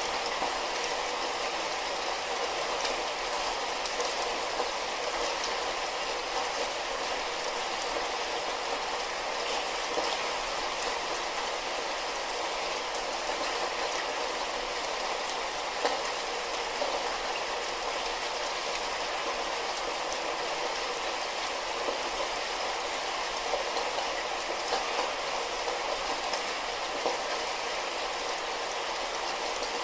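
Steady light rain, an even hiss with scattered faint drop ticks.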